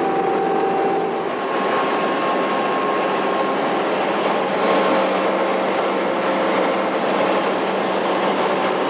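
A bus travelling at highway speed, heard from inside the cabin: a steady, loud mix of engine, tyre and wind noise, with a faint steady whine.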